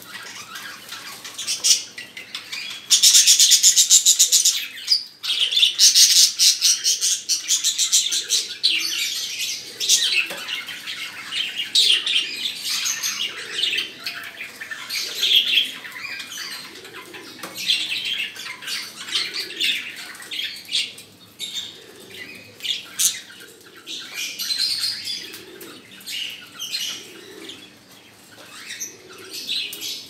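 Lutino cockatiel giving its mating call: a long run of repeated high chirps and whistles, with loud, fast-pulsed stretches about 3 seconds in and again from about 6 to 9 seconds.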